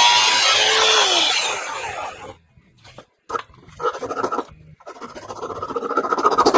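Power tool cutting a metal axle, running and then spinning down about two seconds in. Then come two longer scraping strokes.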